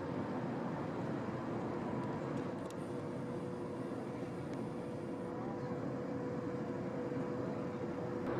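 Steady mechanical drone with a constant mid-pitched whine running through it, from a running engine or machine.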